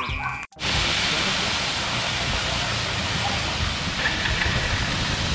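Water main blow-off valve flushing: water gushing out under strong pressure as a steady rushing hiss, cutting in about half a second in.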